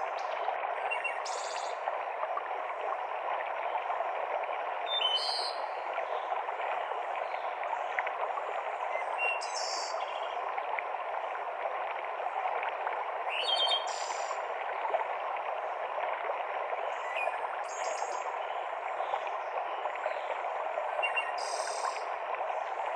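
A mountain stream cascading through a forest, a steady rush of water, with a short, high bird call about every four seconds.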